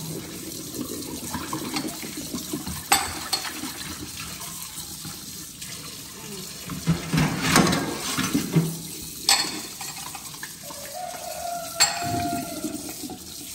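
Kitchen faucet running steadily into a stainless steel sink as dishes are rinsed by hand, with a few sharp clinks of the dishes knocking together.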